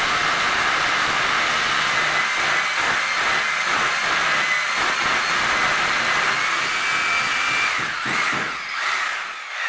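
Cordless drill running continuously, drilling overhead into the aluminium folding door's head frame. Its steady whine falls away about eight seconds in as the motor slows, and there is a short second run near the end.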